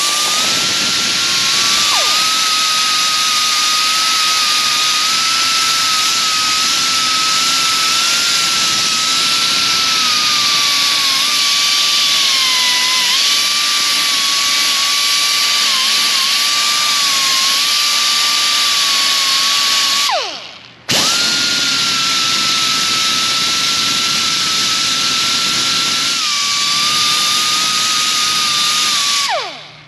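Small high-speed rotary grinder with an abrasive disc whining steadily with a hissing edge while it scuffs the friction face and chamfers the edges of a brake pad. Its pitch sags slightly under load. It winds down about two-thirds of the way through, starts again within a second, and winds down again near the end.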